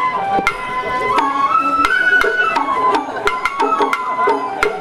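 Sawara-bayashi festival music from the float: a shinobue bamboo flute playing a melody that steps between held notes, over sharp, frequent drum strikes.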